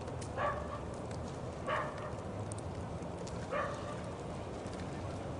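A dog barking three times, each bark short and about a second and a half to two seconds apart, over a steady low background rumble.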